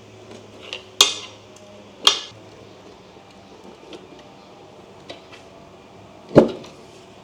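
A flathead screwdriver prying a cover off an electric scooter's deck: three sharp clacks, about one second in, two seconds in and a louder one near the end, the first two with a brief ringing tail.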